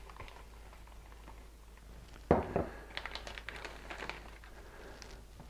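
Handling of a plastic zipper bag filled with almond flour on a countertop: a sharp knock a little over two seconds in, then light crinkling and small ticks of the plastic.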